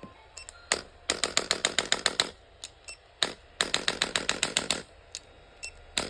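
Electric chiropractic spine adjuster gun running at its lowest intensity setting, its plunger firing rapid sharp clicks. There are two bursts of about a second each, roughly nine clicks a second, each preceded by a single click.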